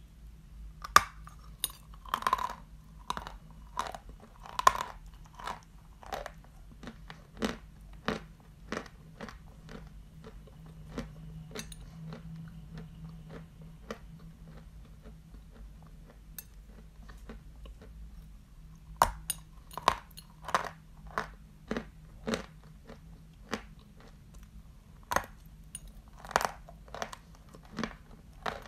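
Crisp crunching bites and chewing of a lump of Barsuk chalk, a run of sharp cracks about one or two a second. The cracks thin out for about ten seconds in the middle, then come thick again.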